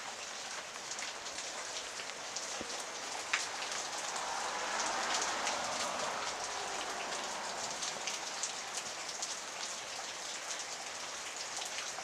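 Steady rain falling, with many separate drops heard; it grows a little louder in the middle.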